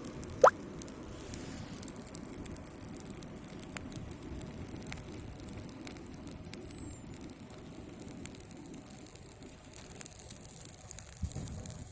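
Small campfire of birch bark and birch twigs burning, a steady low rush of flame with scattered small crackles. A single short, loud squeak rises in pitch about half a second in.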